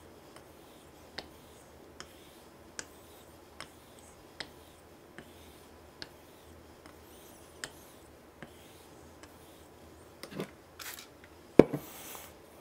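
Straight razor being honed on a soft Japanese natural whetstone with a thin slurry: a light tick about every 0.8 s as the blade is turned over on its spine at each end of the stroke, over a faint rubbing of steel on wet stone. Near the end there is a louder knock with some rustling around it.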